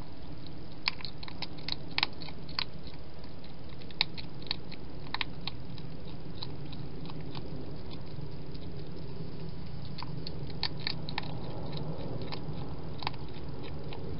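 Wild hedgehog eating at a dish: scattered sharp crunches and clicks of chewing, coming in clusters, over a steady low hum.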